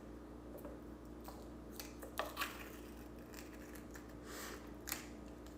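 Scattered light clicks and taps of food containers and dishes being handled while breakfast is set out, over a faint steady hum.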